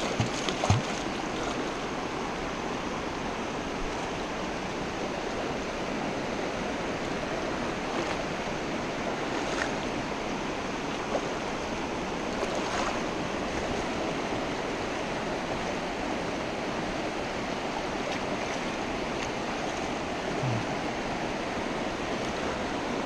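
Shallow rocky mountain stream running over rocks and riffles, a steady rushing flow. About a second in there are a few short splashes at the surface close by.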